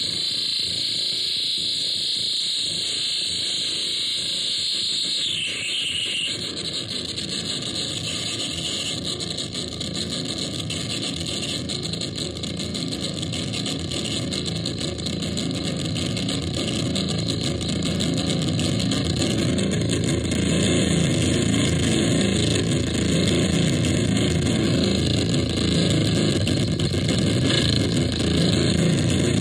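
Bungler Re-Contortor experimental noise machine putting out loud, continuous electronic noise. For the first six seconds or so a high hiss dominates. It then gives way to a denser, lower rush that grows louder in the second half.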